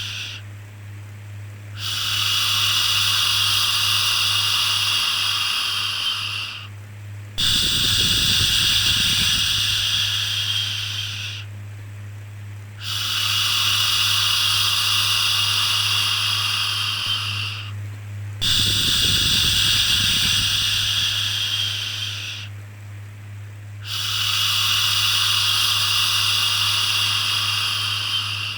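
Shushing "shhh" sound for calming a baby, repeated as five long drawn-out hisses about every five and a half seconds with short pauses between, over a steady low hum.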